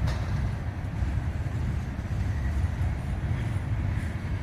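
Steady low rumble of a slow-moving freight train, an empty coal train, rolling by.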